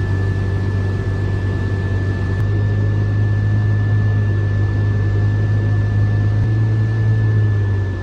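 Vehicle engine running steadily: a loud low hum with a thin, steady high-pitched whine over it. The hum shifts slightly about two and a half seconds in and again at about six and a half seconds.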